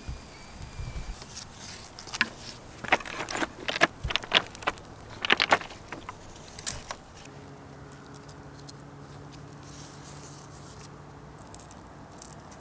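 A quick, irregular series of light clicks, taps and scrapes over several seconds, then a faint steady low hum lasting about four seconds.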